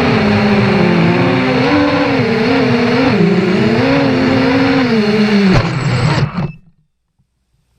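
Brushless motors and propellers of an FPV racing quadcopter (Novak Breeze 2206 2400kv) whining, the pitch rising and falling with the throttle. About five and a half seconds in there is a sharp knock, the whine drops, and the sound cuts off a second later.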